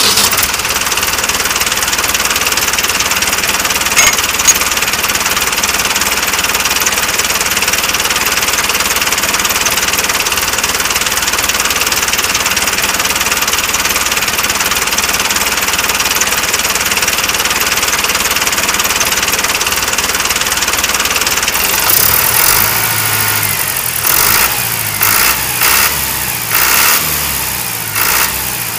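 An engine running steadily for a tractor. About 22 seconds in the sound changes to a lower, pulsing note whose loudness rises and falls unevenly.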